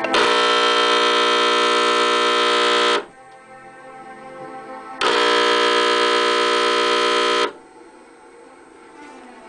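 A loud, harsh electric buzz sounding twice: about three seconds, then after a two-second pause about two and a half seconds more, each starting and cutting off abruptly, the mock 'current' of a miniature electric-chair prop. Soft music plays in the gaps.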